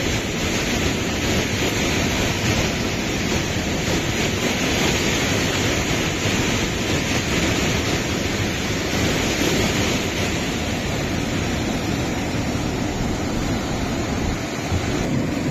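Fast mountain river rapids rushing over rocks: a steady, unbroken whitewater rush.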